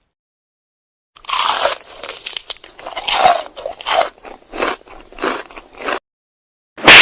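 A run of about ten irregular crunches over some five seconds, of the kind made by biting and chewing something crisp. Near the end comes a single loud, sharp burst.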